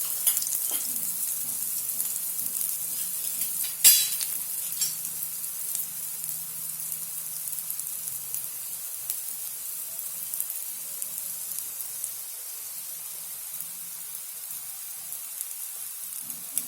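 Multigrain thalipeeth shallow-frying in ghee on a nonstick tawa: a steady high sizzle from the ghee just poured into its holes and around its edges. One sharp crackle about four seconds in, then the sizzle eases slightly.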